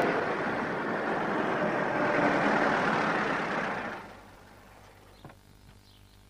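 Moskvich-2140 car driving on a wet road, its engine running under the hiss of the tyres through water. The sound cuts off sharply about four seconds in, leaving only a low background hum.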